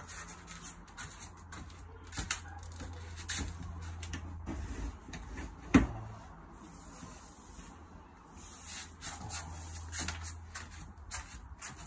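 Irregular knocks, taps and clicks of plastic shed wall and floor panels being worked on by hand, with one sharp knock a little before six seconds in.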